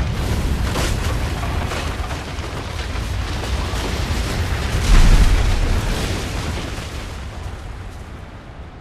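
Earthquake sound effects: a deep, loud rumble with crashing and cracking, a heavy boom about five seconds in, then dying away steadily.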